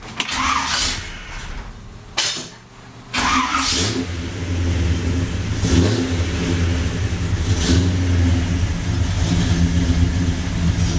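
Big-block Chevrolet V8, freshly fitted with new spark plugs, fires up about three seconds in and settles into a steady run, blipped up briefly a couple of times; it sounds pretty happy.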